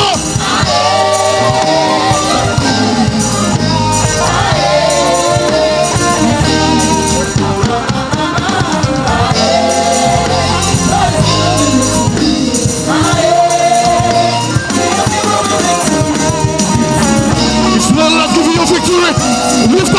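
Live gospel band playing: a man singing into a microphone over electric bass guitar and drums.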